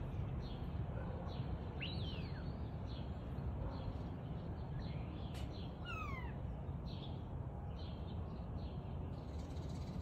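European starling singing: a string of short high notes with long slurred whistles that glide down about two seconds in and again around six seconds in. A steady low rumble runs underneath.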